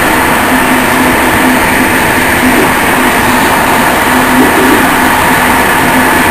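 Running noise of an InterCity train on the move, heard from inside its last carriage: a steady rush of wheels on rails with a constant hum underneath.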